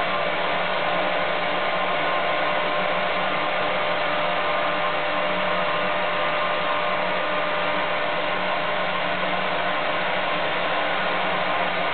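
Siemens canister vacuum cleaner running at a steady speed: an even rush of air with a faint steady whine.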